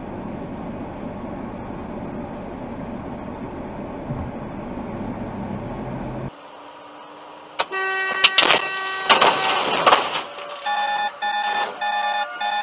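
Steady road and engine noise inside a car from a dash cam. After a cut, a car horn blares, several loud bangs follow, then a run of short, evenly spaced beeps near the end.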